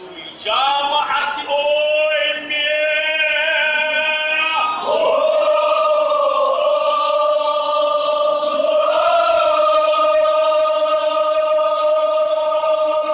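Kashmiri marsiya, a Muharram elegy, chanted by male voices. It starts with wavering melodic phrases, then about five seconds in moves to one long held note that lasts most of the rest.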